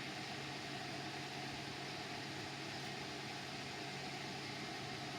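Steady background hum with an even hiss, unchanging throughout, with no distinct knocks or clicks.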